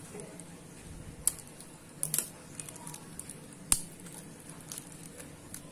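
Scissors cutting stiff clear plastic blister packaging, giving a few separate sharp snips and clicks, with light crinkling of the plastic as it is worked open by hand.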